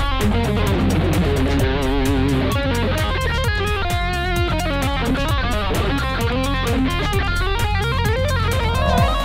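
Instrumental background music with a steady beat and a lead melody whose notes bend and waver.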